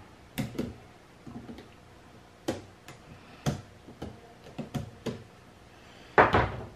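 Irregular sharp clicks and snaps as cutting pliers and fingers work the plastic cell holders and connections of a lithium-ion scooter battery pack apart, with a louder, longer crack near the end.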